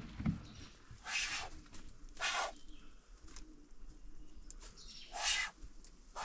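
Tiger snake hissing in defensive threat: three forceful hisses of about half a second each, irregularly spaced, with a shorter one at the end.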